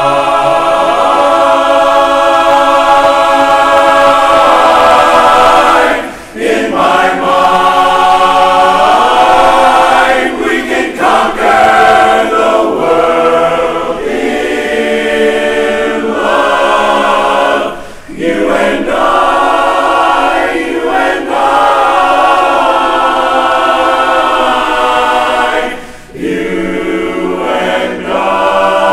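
Men's barbershop chorus singing a cappella in four-part close harmony, holding ringing sustained chords. The phrases break off in short pauses about 6, 18 and 26 seconds in.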